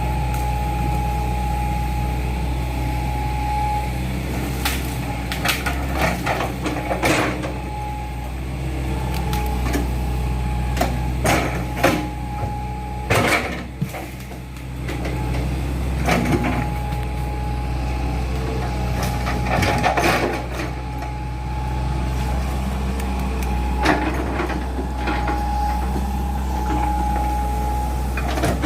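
Hydraulic excavator's diesel engine running steadily under load with a steady whine, broken by many irregular knocks and clanks as it digs a trench.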